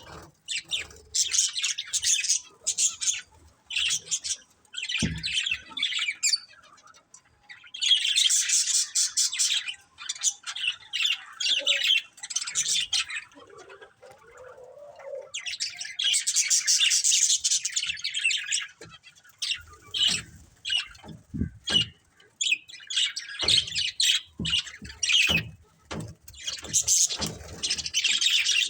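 Budgerigars chattering and chirping, with harsh squawks, in busy bursts of a second or more separated by short pauses. A few soft knocks sound among the calls.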